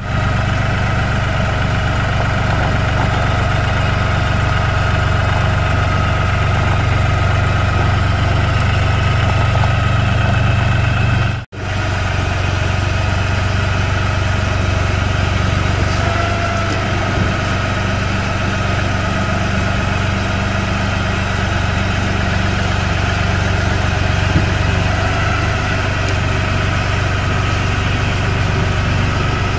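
LS compact tractor's diesel engine running steadily at low speed while the tractor carries a heavy load on its front pallet forks, with a momentary break about a third of the way in.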